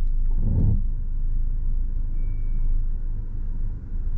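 Mercedes A150 (W169) 1.5-litre four-cylinder petrol engine running at low revs, heard from inside the cabin as the car creeps forward on full left steering lock. A low thump comes about half a second in, and a brief faint high squeak at about two seconds.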